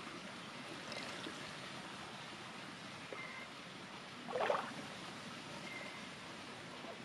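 Hands rinsing and squeezing wild mushrooms in a metal pot of water, with one brief water swish about four and a half seconds in over a steady low hiss.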